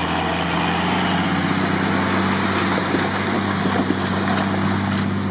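Engine of an off-road vehicle running at a steady pitch as it drives through mud.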